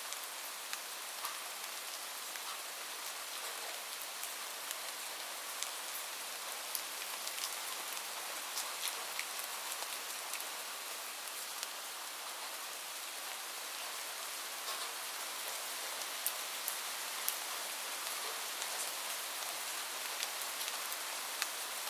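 Light rain falling steadily: a soft even hiss with many individual drops ticking sharply on a surface close by.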